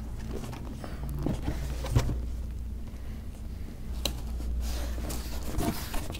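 A cardboard product box being handled and opened on a table: soft scraping and rustling, sharp taps about two seconds and four seconds in, and more rustling near the end as the lid is lifted, over a low steady hum.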